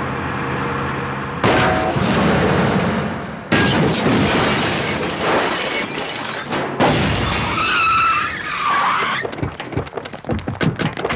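Film crash effects of a vehicle smashing and overturning: three sudden loud crashes with shattering glass, about one and a half, three and a half and seven seconds in. A squeal that bends in pitch follows, then a quick patter of short clicks near the end.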